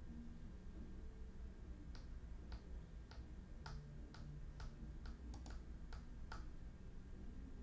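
Faint clicking at a computer: about a dozen light, irregularly spaced clicks starting about two seconds in, over a low steady hum.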